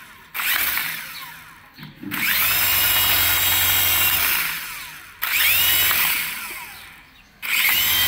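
Small electric motors of an HX708 RC toy helicopter whirring as the throttle is pushed four times: each time the rotors spin up with a rising whine, then wind down. The longest burst holds for about two seconds.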